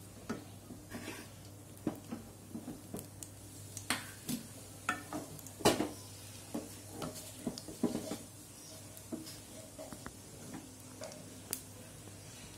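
Cumin seeds crackling in hot oil in a kadhai: irregular sharp pops, several a second through the middle and thinning out near the end, over a faint steady hum.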